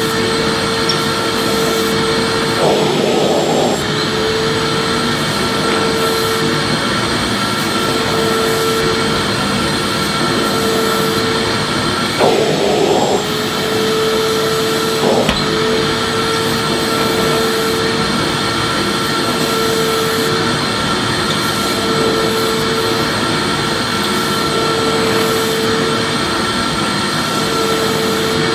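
Vacuum cleaner running steadily: an even rushing noise with a constant motor whine. Three times the whine breaks briefly into a rougher burst of noise.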